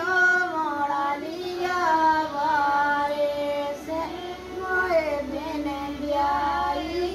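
A high voice in long, wavering, drawn-out notes, each about a second long, with short breaks between them.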